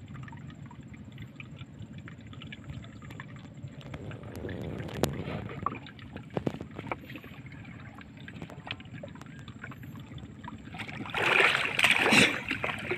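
Water lapping and trickling around a small wooden boat, with light knocks against the hull. About eleven seconds in, loud splashing starts as a person gets down into the water beside the boat.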